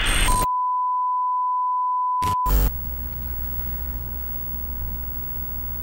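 An edited intro sound effect: a burst of static, then a steady high beep tone lasting about two seconds, cut off by another short crackle of static. Soft background music starts about three seconds in.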